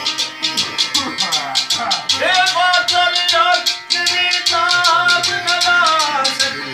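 Sitar playing over a steady rattling percussion beat of about four to five strokes a second. A man's voice comes in about two seconds in, singing long, wavering held notes of a Pothwari sher.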